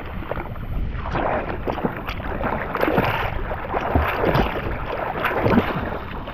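Swimmer's strokes splashing and sloshing through choppy sea water, heard right at the water's surface, with repeated short splashes.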